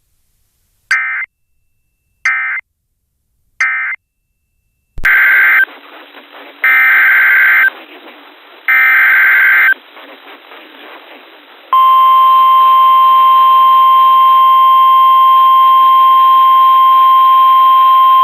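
Emergency Alert System SAME data tones: three short end-of-message bursts, then about five seconds in three longer header bursts that open the next alert over a faint hiss. About twelve seconds in, the steady NOAA Weather Radio warning alarm tone starts and holds.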